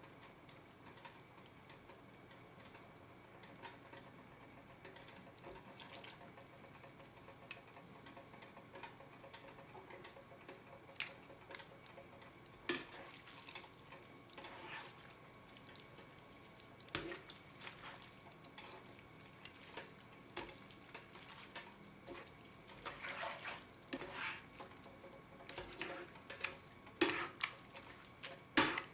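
Vegetable sauce cooking in a frying pan, giving scattered small pops and wet clicks over a faint steady hum. The pops grow louder and more frequent in the second half.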